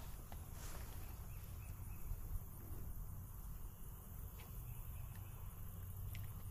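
Faint outdoor ambience: steady insect chirring over a low rumble, with a few light clicks.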